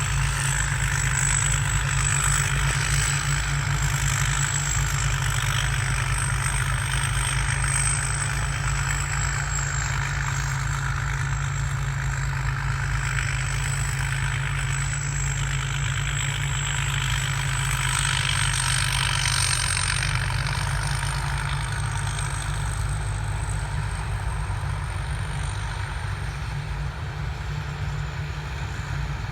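Diesel engine of a Sitcharoen Kan Chang rice combine harvester running steadily under load, with a thin high turbo whistle riding over the engine that wavers slightly in pitch.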